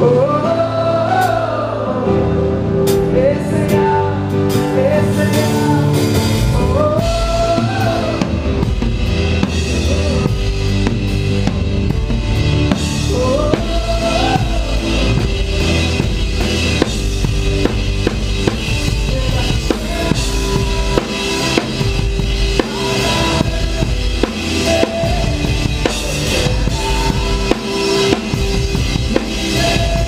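Live band playing a Telugu worship song, picked up from right behind the drum kit, so kick drum, snare and cymbals stand out. Bass and other instruments fill in under it, and a lead melody glides up and down over the first half, while the drumming grows busier in the second half.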